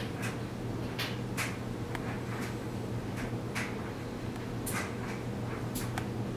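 Steady low hum with scattered soft clicks and rustles, about one or two a second.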